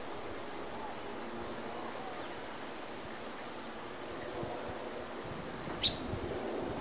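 Outdoor ambience of wind through tall grass, a soft steady hiss, with faint high insect-like tones. One short, sharp high sound comes near the end.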